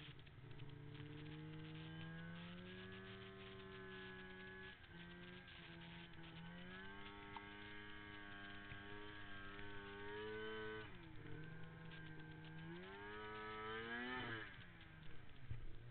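Arctic Cat M8 snowmobile's two-stroke twin engine under throttle, its pitch holding and dipping through turns. It revs up sharply about thirteen seconds in, then drops off as the throttle is let go.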